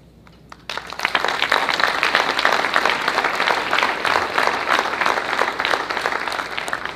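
Audience applauding: a few scattered claps, then full, steady applause from just under a second in that begins to die away near the end.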